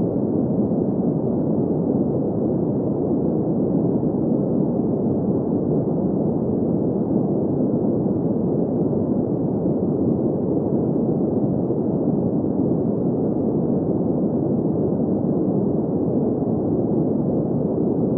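Steady sleep noise: an even, muffled hiss-rumble weighted to the low middle of the range, with no tones, beats or changes.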